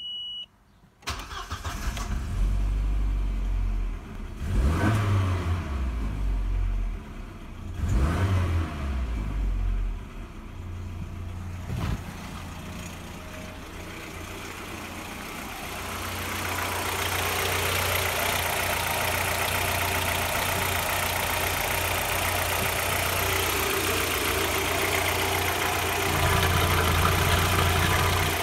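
Audi A4 B5's 1.6-litre ADP four-cylinder petrol engine starting about a second in, revved briefly twice, then idling steadily. In the second half it is heard from the open engine bay.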